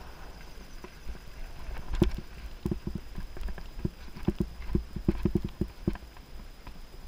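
Giant Anthem Advanced 1 full-suspension mountain bike clattering over bumps on a dirt trail: a loud knock about two seconds in, then a quick run of knocks and rattles over a low rumble of tyres and wind.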